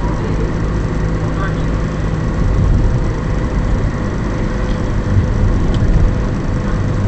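Car in motion heard from inside the cabin through a dashcam: a steady low engine and road rumble with a faint steady whine above it.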